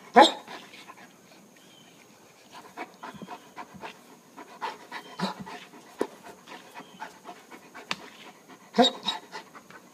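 Large dog panting in short, irregular breaths, with a louder burst just after the start and another about nine seconds in.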